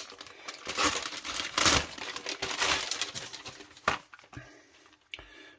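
Packaging crinkling and rustling as it is handled, with a sharp click about four seconds in.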